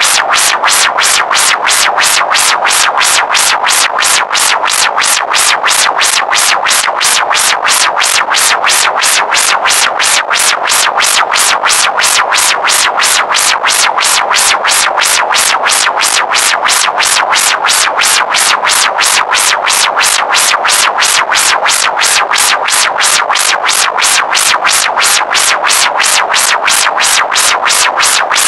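Synthesizer music built on an evenly repeating pulse, steady in level.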